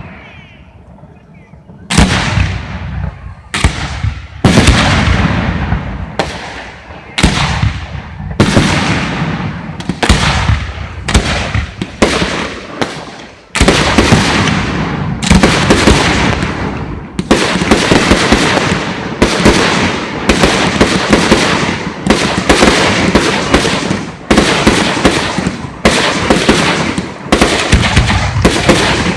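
Aerial fireworks bursting: after a brief lull, a run of loud booms, each cut in sharply and fading away, coming faster and overlapping in the second half.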